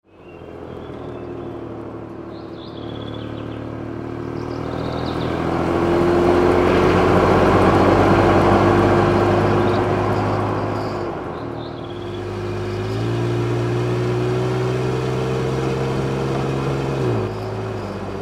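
Mitsubishi Delica camper van driving, its engine running steadily. The engine pitch dips and then steps up a little after halfway, and drops again near the end, as with gear changes.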